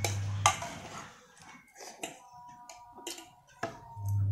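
Metal spoon clinking and scraping against a plate while eating, with one sharp clink about half a second in and lighter taps after it. A steady low hum drops out about a second in and comes back near the end.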